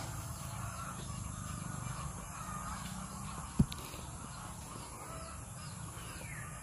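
Faint bird calls over a steady low rumble, with one sharp low thump about three and a half seconds in.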